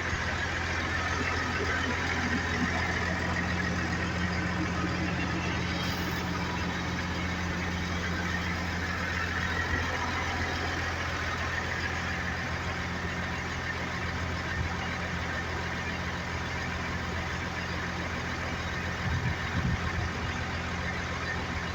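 Heavy diesel engine running steadily at an even low pitch, with a few brief knocks about nineteen seconds in.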